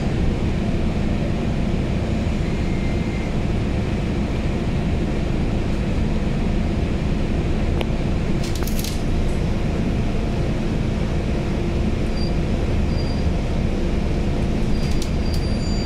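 Scania Citywide 12LF CNG bus's rear-mounted OC09 gas engine and drivetrain running steadily under way, heard from inside the passenger cabin as a constant low drone with road noise. A brief rattle about halfway through.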